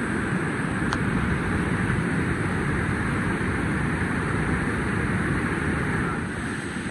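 Steady rush of a waterfall and fast river water, an even noise with no let-up, with one small click about a second in.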